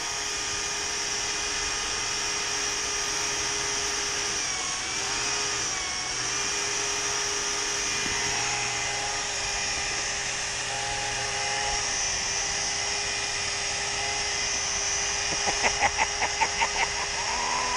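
Handheld electric glass polisher whirring steadily, its pad worked over a window pane to polish out stains. Its pitch dips briefly about five seconds in and then recovers.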